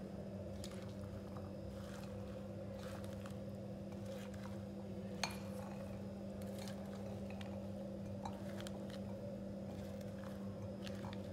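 Salad being tossed with a silicone spatula in a ceramic bowl: soft scrapes and light clicks against the bowl, with one sharper click about five seconds in, over a steady low hum.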